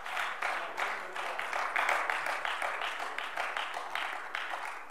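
Members of a parliament applauding at the end of a speech: many hands clapping, dying away near the end.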